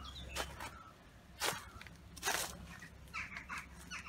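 Footsteps through dry leaf litter and undergrowth, with two sharper steps about a second apart. In the second half a bird gives several short calls.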